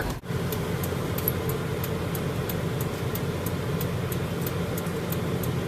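Steady road and engine noise of a car heard from inside the cabin while driving, with faint, even ticking about three or four times a second.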